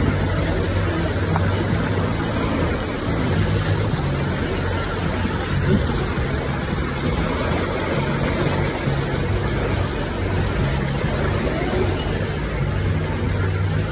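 A 4x4's engine running steadily at low speed while its front tyre churns through a shallow river, with a continuous rush and splash of water over the low engine hum.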